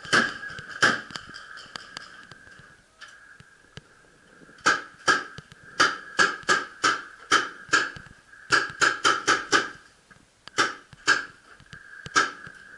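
Paintball markers firing: sharp pops, some single and some in quick strings of about three or four a second, with a steady high hum underneath.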